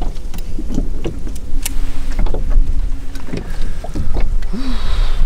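Wind buffeting the microphone on a small fishing boat, a heavy low rumble, with scattered light knocks and clicks.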